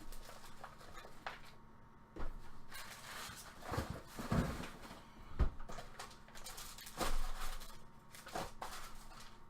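Trading cards being handled: scattered light clicks and short rustles, a few seconds apart.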